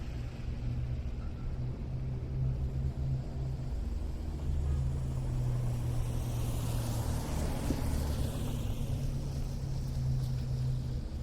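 City street traffic on snowy roads: engines running with a steady low rumble, and one vehicle's tyre hiss swelling and fading as it passes about six to nine seconds in.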